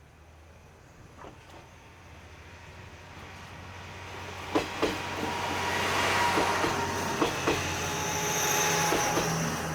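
Diesel railcar approaching and passing, its engine hum and rolling noise building up, with the wheels clacking over rail joints in pairs about four and a half and seven seconds in.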